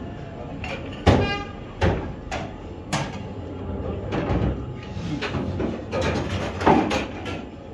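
Pool cue striking the cue ball with a sharp click about a second in, followed by a few more knocks as the balls travel and hit. A faint murmur of voices runs underneath.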